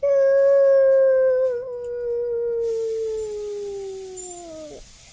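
A young girl's voice holding one long 'oo' note for nearly five seconds, starting loud and sinking slowly lower in pitch before it drops away near the end.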